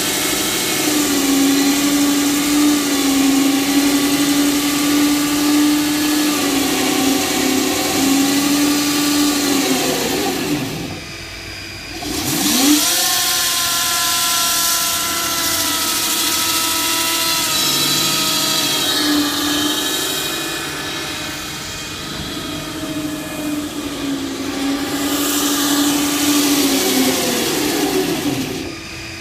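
Power tool cutting concrete: its motor runs at a steady high speed over a gritty hiss from the cut. It winds down to a stop about ten seconds in, starts and spins back up about two seconds later, and winds down again near the end.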